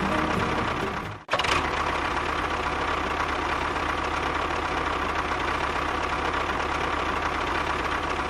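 A small motor running steadily. It cuts out briefly about a second in and then picks up again at the same steady level.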